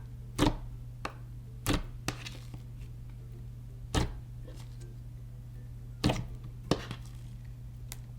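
Clear slime being handled, giving sharp pops and clicks every second or so at uneven intervals.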